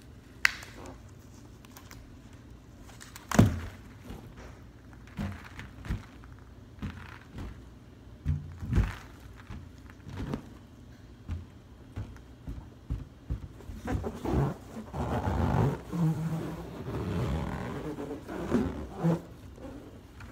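Latex-gloved hands tapping and thumping on an inflated clear latex balloon with confetti inside, as scattered single knocks with one heavy thump a few seconds in. Later comes a stretch of several seconds of rubbing and scraping over the balloon's surface.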